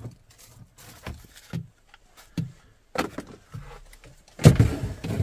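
Plastic A-pillar trim in a Dodge Ram pickup cab being pulled off the windshield pillar: a string of light clicks and knocks from the trim and its clips. A louder snap and clatter comes near the end.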